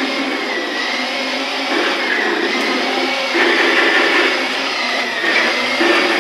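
Battery-powered ride-on toy tank driving over a hardwood floor: its electric drive motors and plastic gearboxes give a steady whir, which grows louder about three and a half seconds in.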